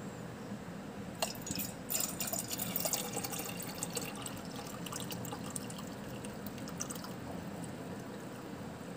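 Water poured from a steel kettle into a steel tumbler, a splashing trickle. It is strongest about one to three seconds in, then thins to a steadier stream.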